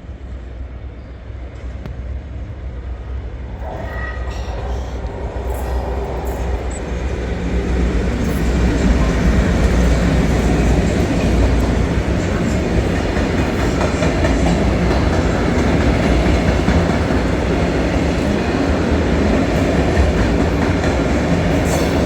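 Train approaching and running through the station, its noise building over the first eight seconds or so and then staying loud and steady.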